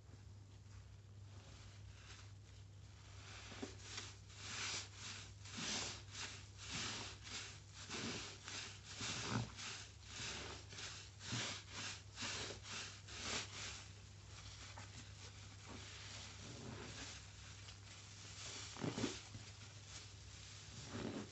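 A drenched sponge squeezed and kneaded in thick soapy lather by rubber-gloved hands: wet squelches and foam crackle, about two a second, starting a few seconds in. After that comes softer rubbing, then two louder squeezes near the end.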